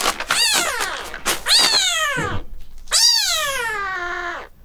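A two-week-old kitten crying out three times in loud, high meows. Each rises and then falls in pitch, and the last is the longest.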